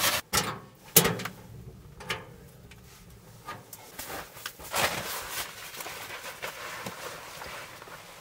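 Handling noises: a few sharp knocks and clatters, the loudest about a second in, with rustling of fabric and gear in between as someone moves about and picks through camping gear.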